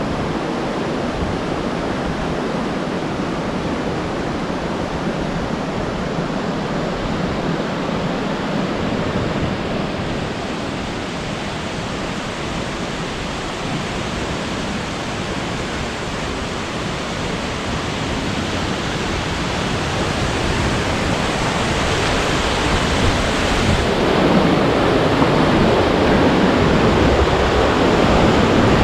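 Fukiware Falls: a steady rush of water pouring over rock, growing louder over the last several seconds.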